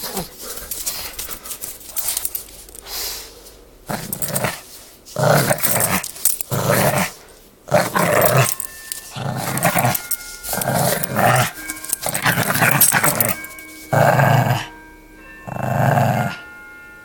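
Pug puppy play-growling during a tug of war with a plush toy, in rough repeated growls about once a second that grow louder and come steadily from about four seconds in.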